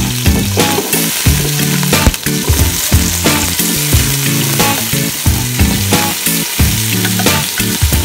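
Cubed potatoes dropped onto onion and garlic in hot oil in an aluminium pot, sizzling, with frequent small clattering knocks as the pieces land. Background music plays throughout.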